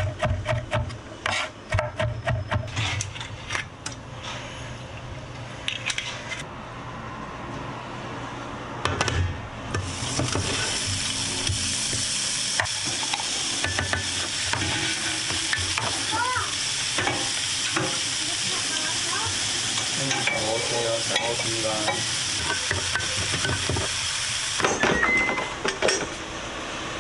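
A knife chopping onion and shiitake mushroom on a wooden cutting board, rapid knocks over the first few seconds. From about ten seconds in, minced beef sizzles steadily in a frying pan on high heat as it is stirred with a wooden spatula. The sizzling stops near the end, followed by a few knocks of a ceramic bowl at a rice cooker.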